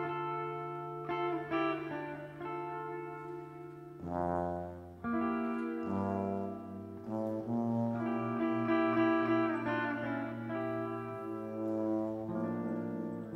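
Live band music: held guitar chords, then a tuba comes in about four seconds in with low notes under a moving melody.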